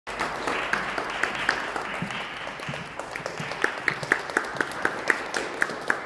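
Audience applauding. The crowd's clapping thins after a couple of seconds while one person nearby keeps clapping loudly, about four claps a second.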